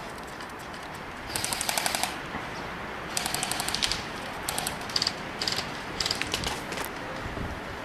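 Airsoft guns firing full-auto bursts: rapid, evenly spaced snapping shots at about fifteen a second, in five or six bursts of under a second each, the longest about one and a half and three and a half seconds in.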